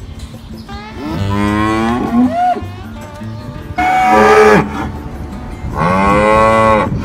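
Cattle mooing: three separate drawn-out calls, the middle one shorter and the loudest.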